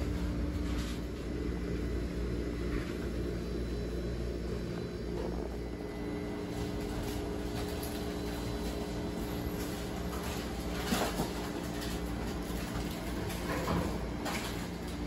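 Shop room tone: a steady low electrical hum with a low rumble beneath, and a few faint knocks and clicks about eleven seconds in and again near the end.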